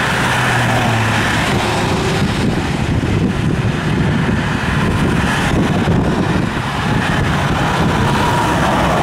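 Highway traffic passing close by at speed: a pickup, cars and a semi-truck, with steady tyre and engine noise.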